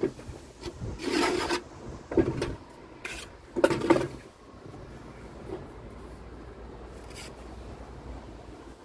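Steel pointing trowel scraping mortar on a hawk and into brick joints while repointing: four short rasping scrapes in the first few seconds, then quieter.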